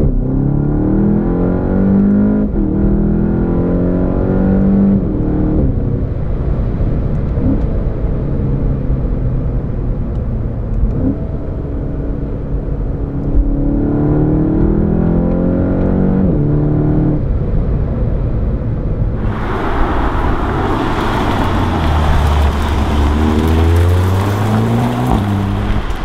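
2017 VW Golf GTI Clubsport's turbocharged four-cylinder engine, heard from inside the car as it accelerates through the gears, its pitch climbing and then dropping at each upshift. About three quarters of the way in, the sound switches to the car heard from outside as it drives up, with a rush of tyre and wind noise and the engine rising again.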